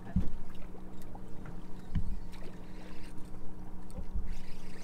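A boat sitting on open water: a steady low mechanical hum from the boat runs throughout, broken by three dull low thumps.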